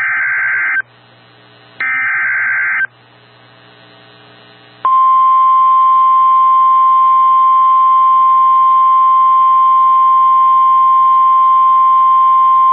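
NOAA Weather Radio Emergency Alert System signal. The SAME digital header bursts end in the first second and sound again about 2 to 3 seconds in, with radio hiss between them. About five seconds in, the steady single-pitch 1050 Hz warning alarm tone starts and holds, announcing an incoming warning broadcast.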